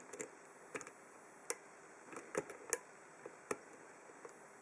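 Light, irregular metallic clicks and taps from a hook pick and tension bar working the pin stacks of an Abus 83/45 brass padlock. The picker judges the pins to be jammed up by too much tension.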